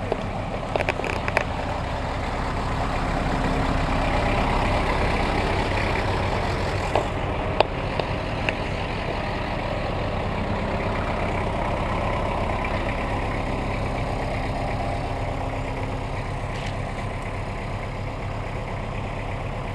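Kubota compact tractor's diesel engine running steadily as it drives with a load on its front loader, with a few sharp clanks along the way.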